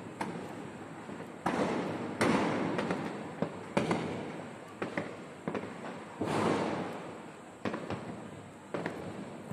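Fireworks going off: about eight sharp bangs at irregular intervals, each trailing off in a fading rumble. The loudest come about a second and a half, two seconds and six seconds in.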